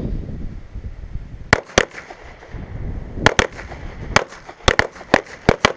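Pistol shots from several shooters on a firing line: about ten sharp shots in irregular pairs and clusters, beginning about a second and a half in.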